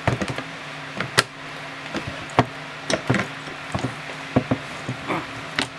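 Small clamp screws being backed out of a steel muzzle brake and handled: a string of sharp metallic clicks and taps, some in quick pairs, over a steady low hum.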